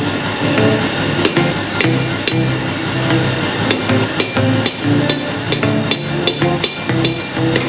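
Hammer blows on steel against an anvil, irregular strikes about two a second, each with a short metallic ring, over background music.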